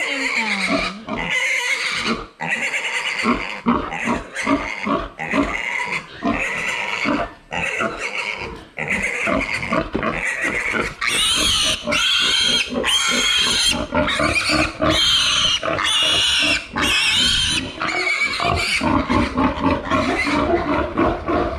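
A piglet squealing over and over in distress, loud harsh screams broken by short gasps, while it is held up by its hind legs for castration. About halfway through the squeals turn higher and shriller.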